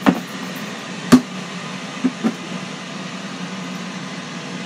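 Knocks and bumps of a plastic breader bowl being shaken and handled, with chicken wings and breading inside. There are a few knocks in the first couple of seconds, the loudest about a second in, over a steady fan hum.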